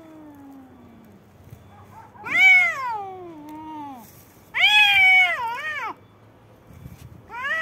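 Two cats yowling at each other in a fighting standoff: long, wavering wails that rise and then sag in pitch. A low wail dies away at the start, two loud yowls follow in the middle, and a third begins near the end.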